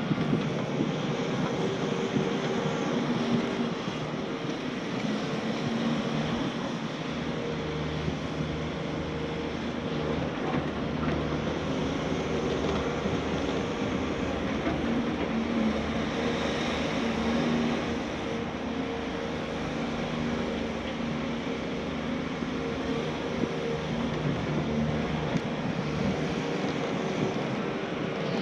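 Diesel engine of a Caterpillar excavator running steadily.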